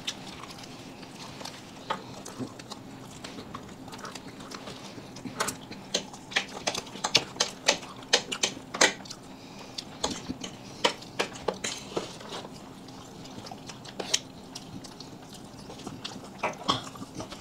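People eating at a table: chewing and mouth smacks with forks clicking against plates, heard as irregular sharp clicks that come thickest through the middle. A faint steady hum lies underneath.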